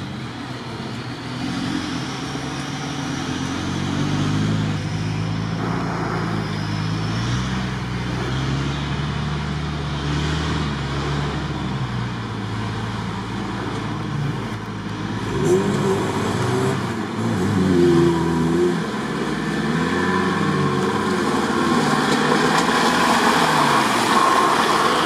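Nissan Patrol off-roader's engine revving up and down unevenly as it pushes through deep, water-filled mud ruts, with tyres churning through the mud. It grows louder as it comes closer.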